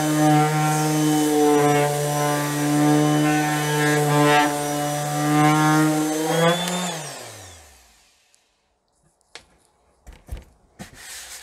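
Parkside PEXS 270 C3 random orbital sander running steadily against bare, weathered wood. About six and a half seconds in it is switched off, and its pitch falls as the motor winds down. A few light knocks follow as it is handled.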